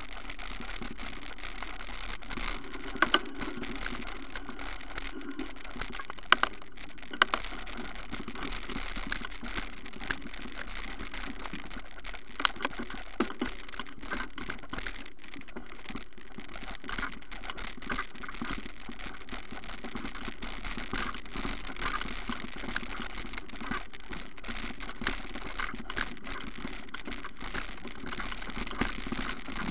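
Steady rustling and pattering with a few sharp clicks and knocks, typical of handling noise from a small camera carried by a person outdoors, over a low steady hum.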